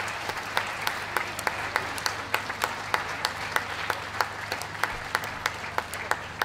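Spectators applauding, with one close pair of hands clapping steadily, about three claps a second, over the general applause.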